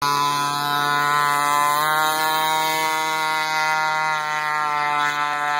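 6 HP liquid-cooled Polini pocket-bike race motor, a small two-stroke, running hard as it drives the kayak, a steady high buzz that rises slightly in pitch about two seconds in.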